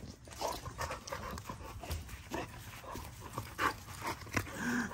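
American bully dogs panting and sniffing close by, in short, irregular breaths.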